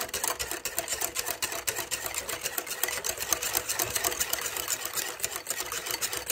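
Wire whisk beating thick semolina (rava) idli batter in a steel bowl, its wires ticking rapidly and steadily against the bowl as the curd lumps are worked out.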